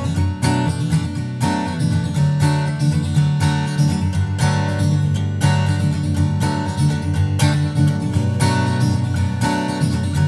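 Background music: a solo acoustic guitar plucking and strumming at a steady pace.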